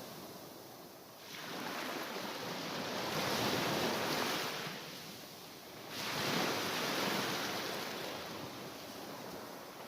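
Mediterranean waves washing onto the shore, two surges in a row, each swelling suddenly and then fading away slowly.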